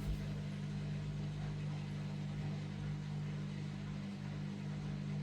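Freshly plumbed-in washing machine running after being switched on, giving a steady low electrical hum.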